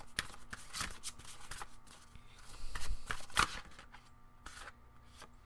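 A deck of oracle cards being shuffled by hand: a run of soft flicks and taps as the cards slide against each other, busiest a little past the middle.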